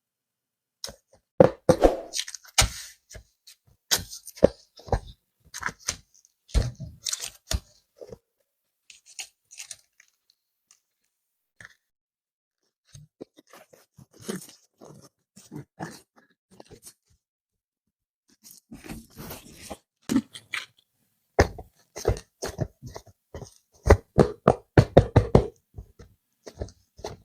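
Close-miked hands unboxing and handling soft modelling clay: irregular short crackles, clicks and soft squishes of the packaging and clay, in clusters broken by a few silent pauses.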